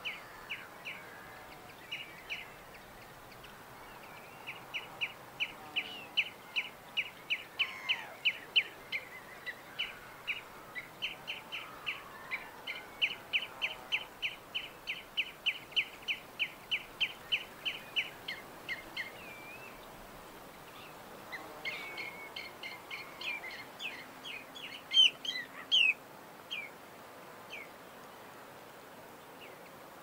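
Small birds chirping: a long run of short, high chirps at about two to three a second, then after a brief pause a cluster of varied, louder chirps, and a few single chirps near the end.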